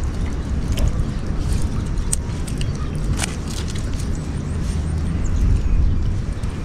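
Outdoor wind rumbling on the microphone at the water's edge, a steady low noise, with a few faint sharp ticks.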